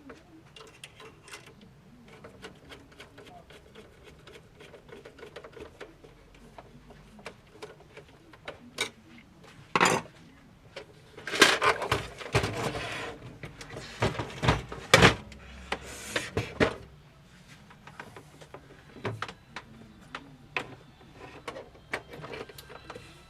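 A series of irregular clicks and knocks, with a run of louder knocks and clatter about halfway through.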